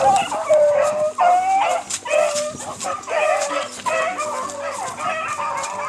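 A pack of rabbit hounds baying and yipping together in full cry, several dogs' voices overlapping without a break, as they drive a rabbit hard on its track.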